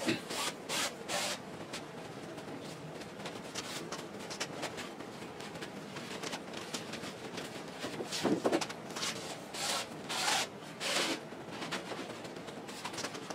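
Headliner material rubbing and rustling as its sleeves are worked along the headliner's metal rods, in short scraping strokes: a few near the start and a cluster about eight to eleven seconds in.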